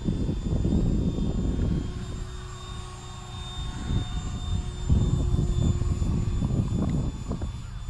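Habu 70mm electric ducted-fan RC jet flying high overhead: a thin, steady, high whine from its fan. Under it, a loud, gusty low rumble of wind on the microphone.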